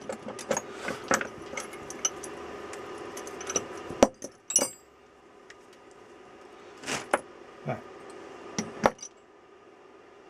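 Metal spanners clinking and jangling against each other as a tool roll is handled and rummaged through: a string of light clinks, a sharp clank about four seconds in, and a few more clinks between seven and nine seconds.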